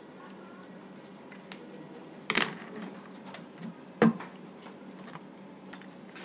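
Two sharp clicks or knocks, one about two seconds in and a louder one about four seconds in, with a few faint ticks over a steady low room hum.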